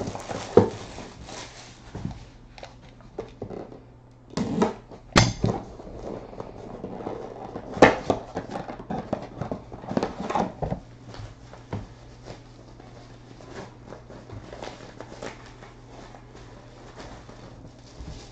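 Plastic shrink-wrap crinkling and cardboard box flaps being handled as a box is unwrapped and opened, with irregular rustling and a few sharp knocks, over a steady low hum.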